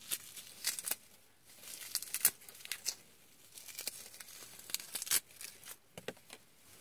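Gold metallic tinsel garland rustling and crinkling in short, irregular crackles as it is handled and wrapped around a figure.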